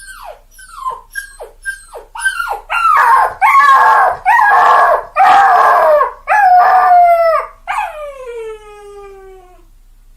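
Dog giving a string of short yelps that fall in pitch, then loud drawn-out howls, the last one sliding slowly down in pitch for about two seconds before fading out.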